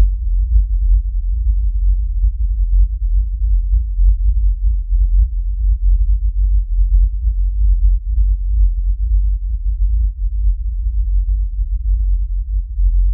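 Sonified solar acoustic oscillations: helioseismic vibrations of the Sun, sped up into hearing range, heard as a deep, steady rumble with an unevenly fluttering loudness.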